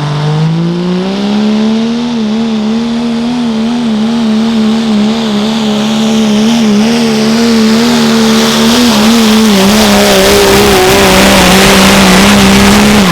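Diesel pulling truck making a sled pull: the engine revs up over the first couple of seconds, then holds at high revs with its pitch wavering slightly as it hooks and pulls, a hiss building up over it. Right at the end the engine note drops away suddenly as the throttle comes off.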